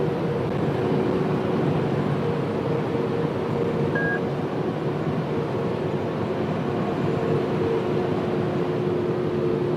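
Fire engine driving at road speed, heard from inside the cab: a steady drone of engine and road noise with an even hum. A single short beep about four seconds in.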